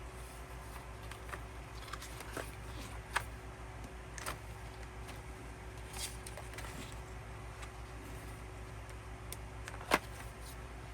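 Scattered soft clicks, taps and rustles of paper, card and plastic album pieces being handled, with one sharper tap near the end, over a low steady hum.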